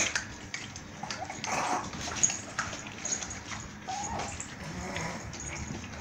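A litter of four-week-old pit bull–bulldog puppies whimpering, with a few short whines among scuffling and clicks as they shift about in a plastic tub.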